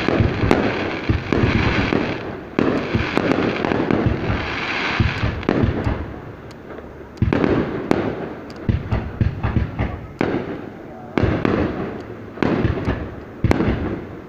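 Aerial fireworks bursting: a dense spell of crackling and bangs for the first few seconds, then a string of separate sharp bangs.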